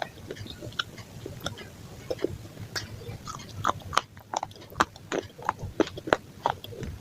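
A person eating close to the microphone: bites and chewing, with many short, irregular mouth clicks and smacks.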